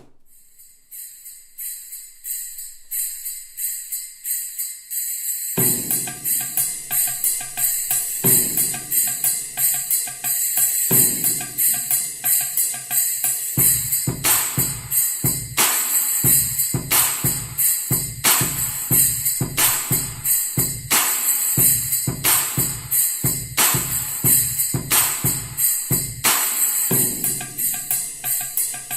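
Music with a drum beat played back through a Canton Plus S two-way mini speaker. It opens with high-pitched percussion alone, bass comes in about five and a half seconds in, and a steady strong kick-drum beat starts about halfway through.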